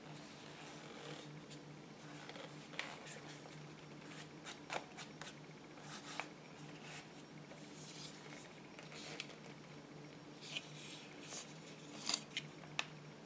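DJI Goggles and their packaging being handled: scattered soft clicks and brief rustles, with a few sharper clicks near the end, over a faint steady hum.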